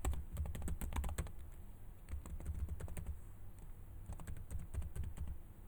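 Typing on a computer keyboard: a quick, irregular run of key clicks as a username and password are entered.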